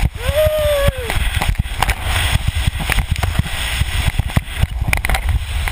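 Wind buffeting the microphone and a sandboard hissing over the sand as it slides down a dune, with a steady deep rumble and many scattered clicks. A short yell rises and falls near the start.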